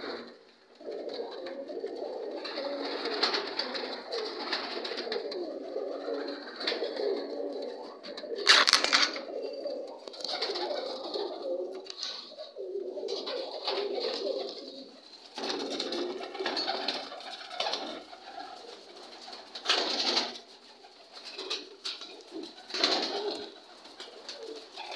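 Caged high-flyer pigeons cooing almost continuously in low, rolling, overlapping calls. A brief loud noise cuts across the cooing about a third of the way in, with smaller ones later.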